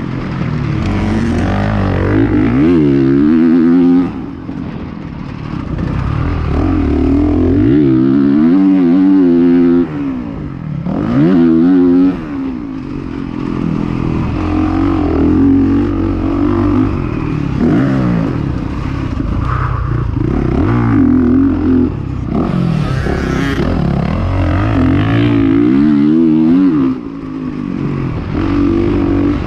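Dirt bike engine heard from the rider's seat on a motocross track, revving hard as it accelerates and dropping in pitch and loudness several times as the throttle is shut off between straights.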